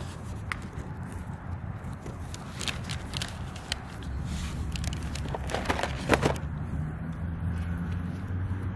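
A cardboard box and other items being handled in a wicker basket: scattered light clicks, knocks and rustles, with a quick cluster of clicks about six seconds in. A low steady rumble lies underneath.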